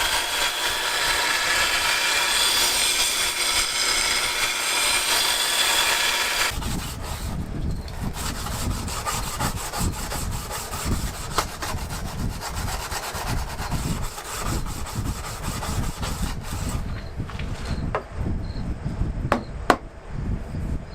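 A steady machine-like noise cuts off abruptly about six seconds in. It gives way to quick, repeated hand strokes of rubbing or sawing, with a few sharp clicks near the end.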